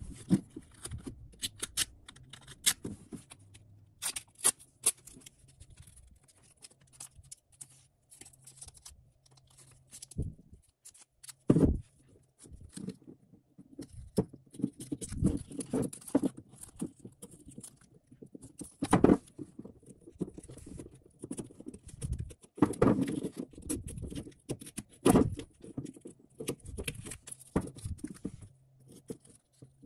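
Masking tape being smoothed onto a steel vise jaw, cut along its edge with a hobby knife and the excess peeled away: irregular crinkling, scraping and small clicks.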